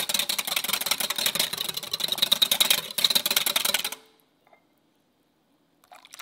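Wire balloon whisk beating egg yolks and oil in a glass mixing bowl, its wires clicking rapidly against the glass; the beating stops about four seconds in. Near the end, milk pours briefly into the bowl.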